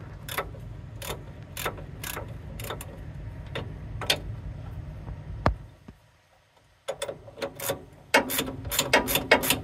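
Ratchet wrench clicking in repeated short strokes as a nut is turned on the pickup's front steering linkage. The strokes come about twice a second, stop briefly about six seconds in, then resume faster.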